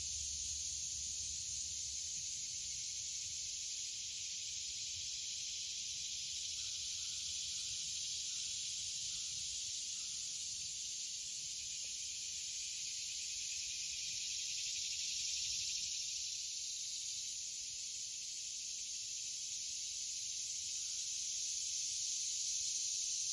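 A steady, high-pitched chorus of insects: an even, continuous drone with no breaks.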